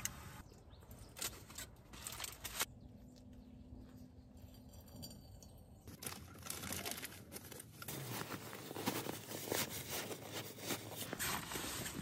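A few scattered clicks and rustles at first, then from about halfway a steady run of rustling and crinkling as nylon sleeping bags and stuff sacks are packed up, growing louder toward the end.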